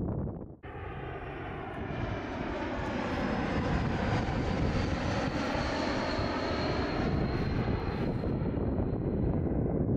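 Jet airliner passing by: a steady engine roar with a high whine that drops slightly in pitch as it goes past. It begins about half a second in.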